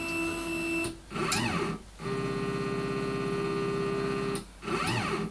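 Stepper motors of a homebrew CNC router homing the X and Y axes, driving toward the limit switches. A steady whine cuts out just before a second in. A short move follows whose pitch rises and falls. Then comes a steady run of about two and a half seconds, and a second short rising-and-falling move at the end.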